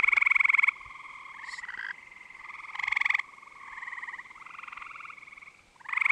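Several toads trilling in shallow water: overlapping, finely pulsed trills about a second long follow one another, the loudest right at the start and again near the end.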